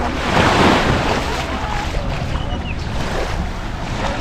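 Surf washing onto the beach, swelling in the first second, with wind buffeting the microphone and faint voices in the background.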